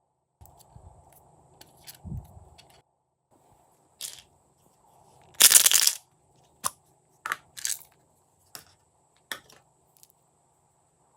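Glossy slime being worked by hand, giving short sticky pops and clicks. About five and a half seconds in there is one louder crunching burst lasting about half a second.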